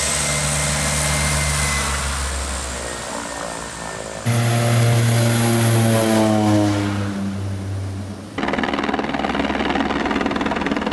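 A de Havilland Canada DHC-6 Twin Otter's twin turboprop engines running steadily, then louder as the aircraft rolls past on its takeoff run, the engine pitch falling as it goes by. A little past eight seconds the sound cuts to a helicopter's engine and rotor.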